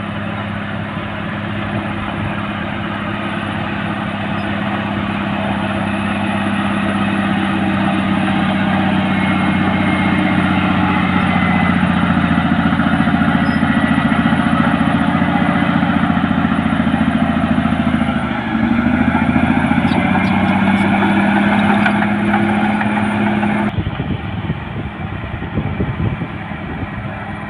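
Caterpillar D6R bulldozer's diesel engine working under load: a steady drone that grows louder over the first dozen seconds, sags and recovers in pitch about two-thirds through, then changes abruptly shortly before the end.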